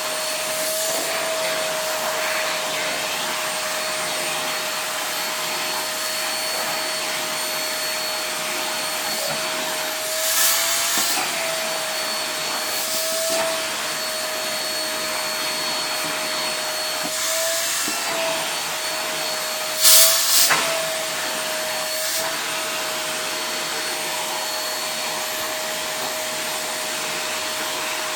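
Household vacuum cleaner running steadily while being passed over a cat's fur, with a constant motor whine. The whine wobbles briefly in pitch several times, and there are short louder rushes of air about ten seconds and twenty seconds in, as the suction at the nozzle changes.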